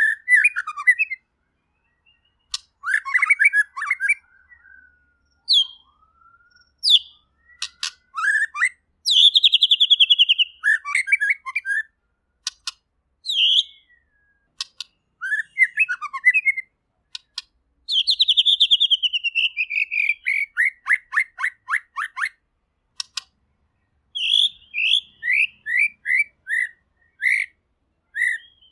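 White-rumped shama singing a varied song. Its phrases mix clear whistles, rapid clicking rattles and long runs of quick notes that fall in pitch, with short pauses between them.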